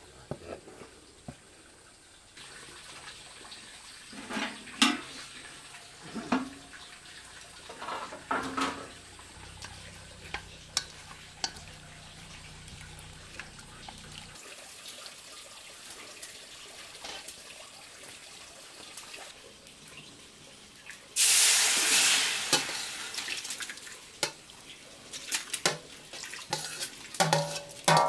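Kitchen work: pots and utensils knocking and clinking, with a loud rush of water lasting about two seconds roughly three-quarters of the way through, followed by a quick run of knocks.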